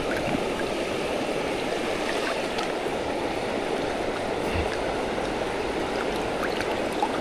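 Fast-flowing river water rushing steadily, with a few faint small ticks over it.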